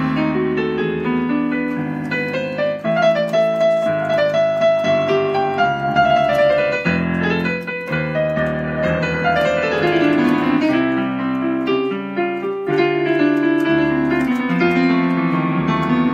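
Digital piano played with both hands: a melody over chords in an instrumental passage, running without a break.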